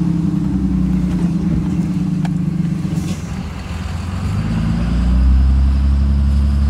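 A 2005 5.9 Cummins turbodiesel in a Dodge Ram pickup running in second gear with the torque converter locked. About five seconds in, the ECM-controlled exhaust brake comes on and the engine note turns into a louder, deeper steady drone.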